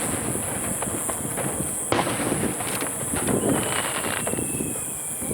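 Aerial firework shells, 4 to 10-gou, fired in quick succession: sharp booms at the start and about two seconds in, another shortly after, with crackling between. From about three and a half seconds a faint thin whistle slides slowly down in pitch.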